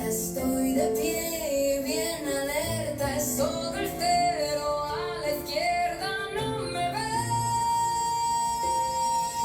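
Recorded pop song with a woman singing a melody over guitar, holding one long note from about seven seconds in.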